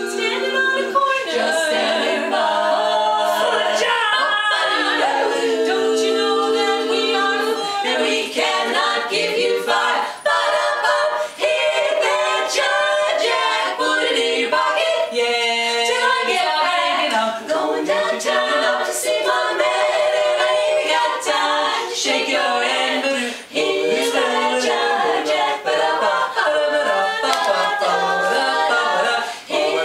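Women's barbershop quartet singing a cappella in four-part harmony.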